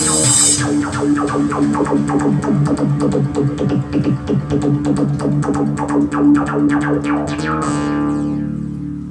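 Korg Pa50SD arranger keyboard playing a synthesizer sound over MIDI: a fast run of quick notes over a steady low held tone. A held chord takes over about three-quarters of the way through and fades out near the end.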